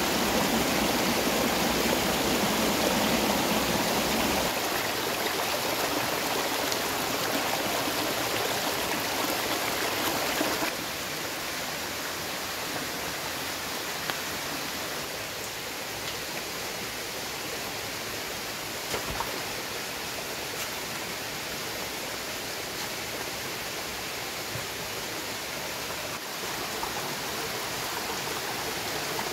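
Forest stream running: a steady rush of flowing water. The low rumble drops away about four seconds in, and the whole sound steps down abruptly in level about ten seconds in.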